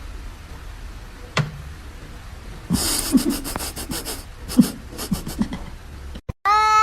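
A sharp click, then an animal panting in quick rasping breaths with a few short low grunts.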